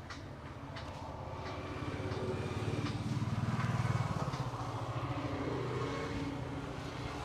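A motor vehicle passing on the road, its engine growing louder to a peak about three to four seconds in and then fading. A few light taps are heard in the first second and a half.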